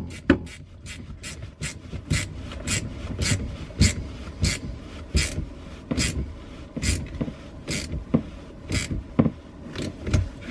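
Small hose clip being screwed tight on a plastic water-hose junction, a rasping click about three times a second. It is being fitted to stop a slight drip at the junction.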